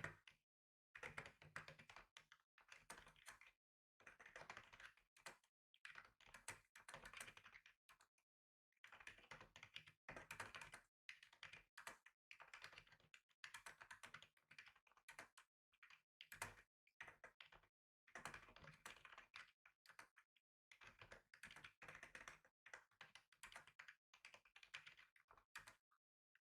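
Faint typing on a computer keyboard: runs of rapid key clicks lasting a second or two, broken by short pauses.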